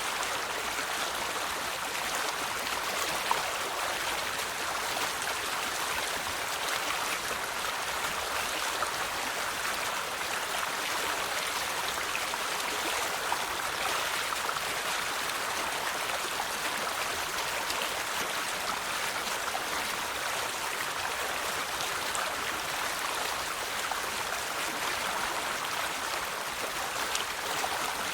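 River water flowing and babbling over stones: a steady, even rush with small splashes and gurgles.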